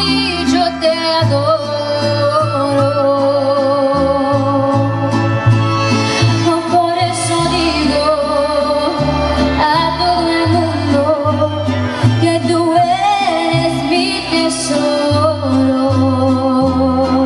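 Mariachi band playing a ranchera: a wavering melody over a low bass line that steps to a new note about every half second.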